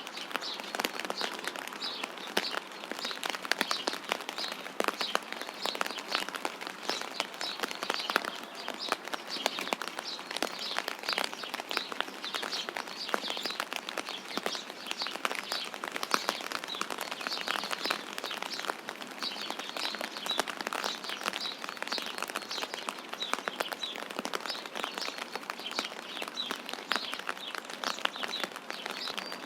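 Steady light rain pattering, with small birds chirping and twittering over it.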